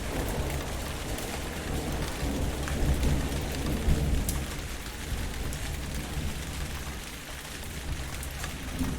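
Rainstorm: steady rain with scattered sharp drop ticks, and a low rumble of thunder that swells and fades about three to four seconds in.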